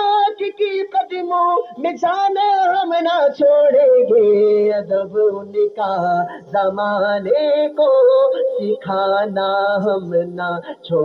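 A male naat reciter singing a long, ornamented melodic passage with no clear words, the voice gliding and wavering in pitch. From about six seconds in, a low held tone sounds beneath the voice.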